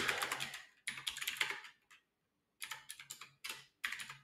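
Typing on a computer keyboard: quick runs of keystrokes, with a pause of about half a second a little after two seconds in.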